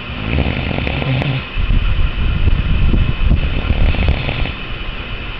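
Loud snoring: one long, low, rough snore with a brief break about a second and a half in, fading out near the end.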